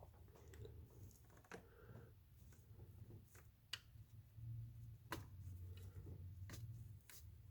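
Faint, scattered sharp clicks and ticks, about six of them, of a metal pick tool working against the plastic lock of a fuel injector connector, over a low steady hum.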